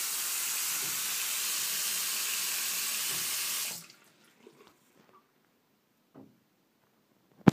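Water running steadily, cutting off abruptly about halfway; then a few faint taps and one sharp, loud knock near the end, knocking in an apartment building's plumbing riser.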